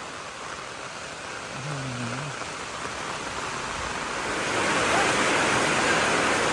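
Heavy rain pouring down in a steady rush, growing clearly louder about four and a half seconds in. A brief low voice-like sound comes about two seconds in.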